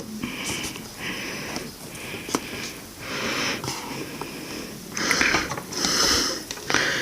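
A person breathing audibly through the nose close to the microphone: a series of about seven short sniffing breaths, with a few light clicks between them.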